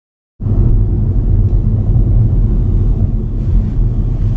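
Steady low rumble of a moving car heard from inside the cabin, road and engine noise, starting abruptly about half a second in.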